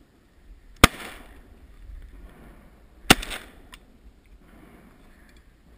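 Two shotgun shots about two seconds apart, each a sharp crack with a short echo over the water.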